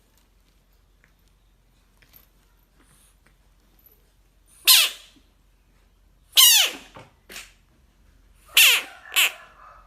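American bullfrog giving distress screams: a series of loud, short calls, each falling steeply in pitch, starting about halfway through.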